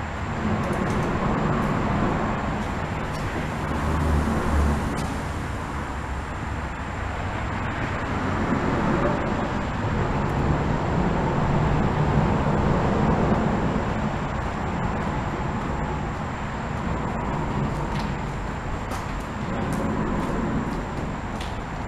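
Road traffic passing over a bridge: a steady rumble of tyres and engines that swells and eases as vehicles go by.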